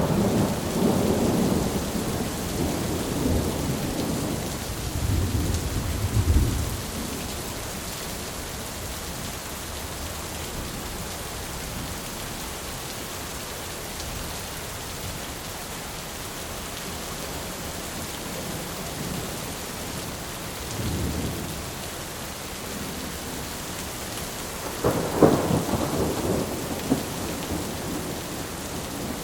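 Heavy rain falling steadily with thunder: a long rolling rumble over the first several seconds, a short low rumble about 21 seconds in, and a louder, sharper thunderclap followed by rumbling about 25 seconds in.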